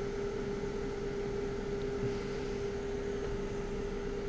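Steady electrical hum, one constant tone with an even hiss underneath, from the electronics repair bench equipment.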